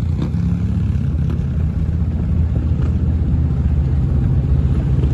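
Vehicle engine running steadily with a low rumble.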